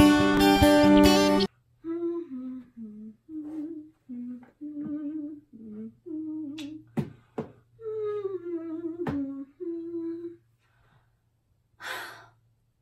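Background music that cuts off about a second and a half in, then a woman humming a meandering tune in short notes, with a few sharp taps in between. A short breathy sound near the end.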